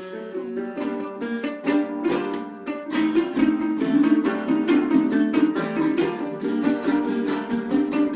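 Instrumental music on a small plucked string instrument, strummed in quick, even strokes, growing a little louder about three seconds in.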